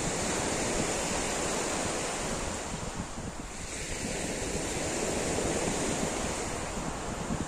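Waves breaking and washing up a pebble shore, in two surges with a lull about halfway through, with wind buffeting the microphone.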